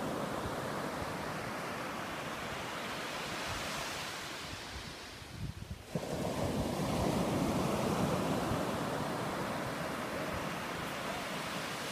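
Ocean surf breaking and washing up the shore, a steady rush that dips briefly about halfway through.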